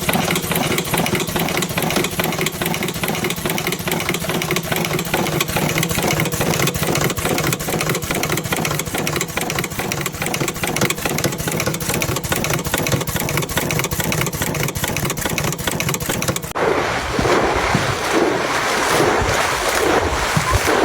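An engine running steadily with a dense rattle. About sixteen seconds in, the sound cuts abruptly to a different, rougher noise.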